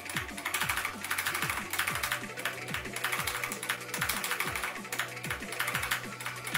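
Rapid, fast keypresses on a Skyloong GK75 optical-switch keyboard, heard over electronic rhythm-game music with a steady kick-drum beat of about three a second.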